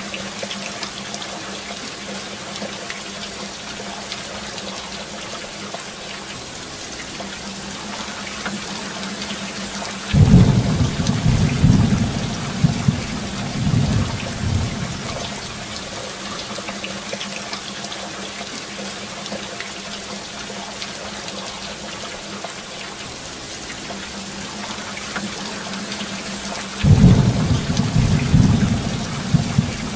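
Steady heavy rain, with two rolls of thunder: one about ten seconds in and one near the end. Each starts suddenly and rumbles low for a few seconds before dying back.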